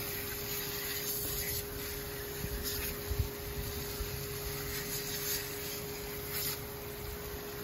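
Garden hose spray nozzle spraying water onto a dog's legs and the wet concrete: a steady hiss of water, with a steady hum under it.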